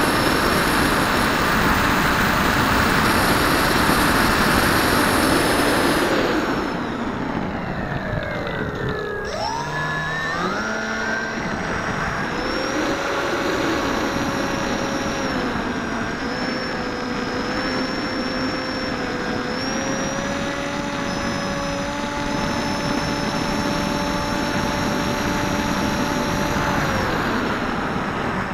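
Electric brushless motor and pusher propeller of a Bixler foam model plane whining over a rush of wind across the airframe. About six seconds in, the throttle is cut and the pitch slides down; about three seconds later it throttles back up and holds a steady whine, easing off again near the end.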